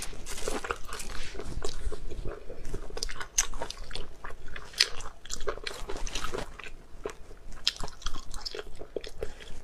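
Close-miked chewing and wet mouth sounds of someone eating spicy snails: irregular short clicks, smacks and crunchy bites.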